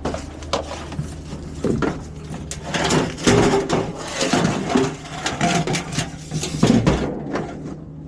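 Irregular knocks and clatter, about two or three a second, over a steady low hum.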